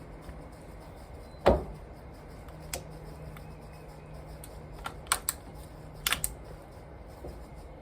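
AR-15 rifle parts clicking and knocking as the rifle is reassembled. There is one sharp knock about a second and a half in, then scattered lighter clicks, a quick double click around five seconds and a short cluster of clicks near six seconds.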